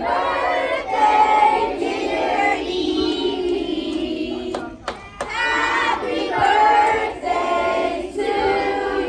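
A group of children singing together, held notes in two phrases with a short break about five seconds in.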